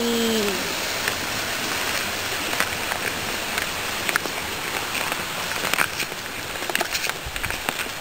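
Steady rush of a river flowing beside the path, with scattered light clicks and taps of footsteps on a wooden log bridge.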